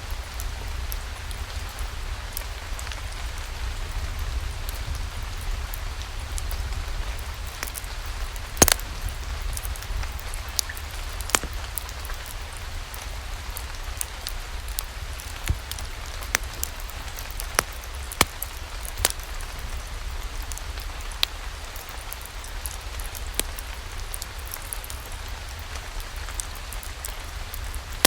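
Steady rain, with a low rumble underneath and scattered sharp pops and clicks at irregular intervals.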